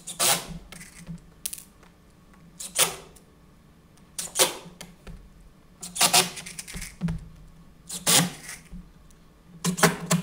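Metal screws clinking and rattling in a small tin cup as they are handled, about six short rattles a second or two apart.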